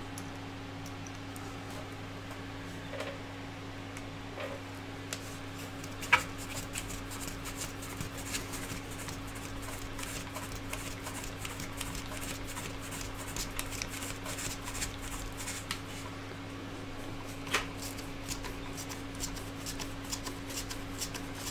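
Small precision screwdriver turning a screw into a 3D-printed plastic part, with hands handling the part: quick faint clicks and scratches, with two sharper knocks about six and seventeen seconds in.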